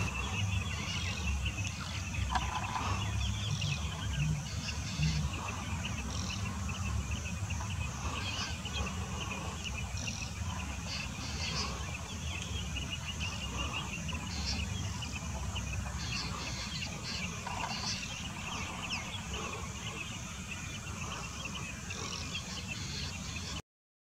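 Outdoor birdsong: many small, rapid chirps and calls over a steady low rumble, cutting off suddenly near the end.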